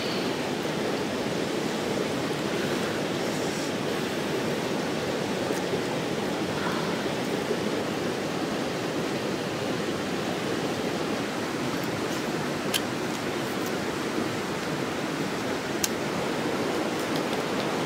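Steady rushing noise with no pitch to it, unchanging throughout, with a few faint sharp clicks in the second half.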